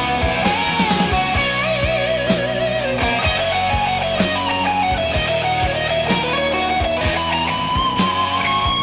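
Instrumental break of a 1980s hard-rock ballad: a lead electric guitar plays a melodic solo with wide vibrato on its held notes, over drums and a full band backing.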